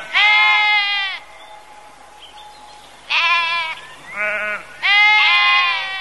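Sheep bleating: four separate bleats. Three are long and high-pitched, and a shorter, deeper one comes about four seconds in.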